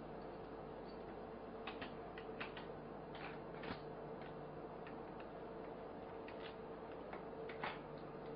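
Irregular light clicks and short rustles from long leg braces and their straps being handled and adjusted, over a steady background hiss with a faint hum.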